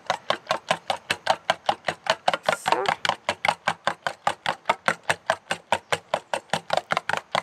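Egg whites being beaten by hand in a bowl, the utensil clicking against the bowl in a fast, even rhythm of about five or six strokes a second.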